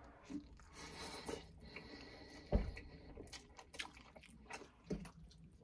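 Two people eating instant ramen noodles with forks: slurping and chewing, with small clicks of forks on bowls and a dull knock about two and a half seconds in.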